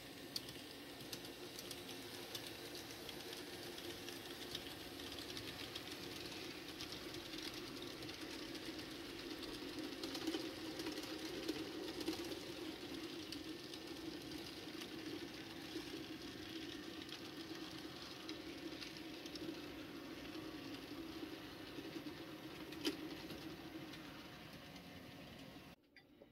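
N scale model train running past on the layout: a steady small-motor hum with wheel and track rattle, swelling through the middle and easing off later, with a few sharp clicks. The sound cuts off abruptly just before the end.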